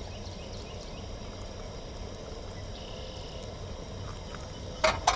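Steady low rumble of wind on the microphone, then two sharp clicks close together near the end.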